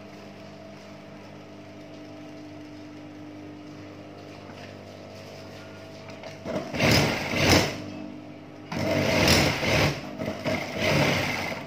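Juki industrial sewing machine stitching a seam in trouser fabric, in two runs: a short one about six and a half seconds in and a longer one from about nine seconds, over a steady low hum.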